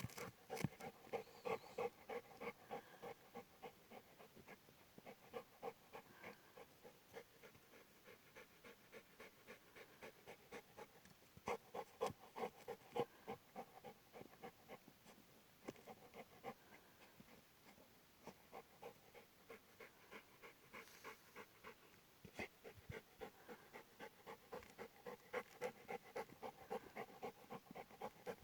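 Dog panting rapidly and rhythmically, a few breaths a second, with brief lulls.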